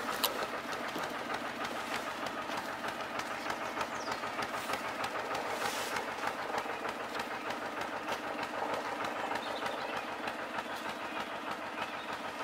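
Narrowboat's diesel engine running steadily, with an even, rapid knocking beat.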